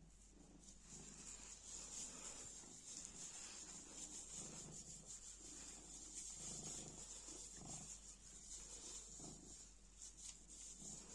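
Domestic cat purring faintly in breath-long swells, with soft rubbing and rustling of a plastic bag.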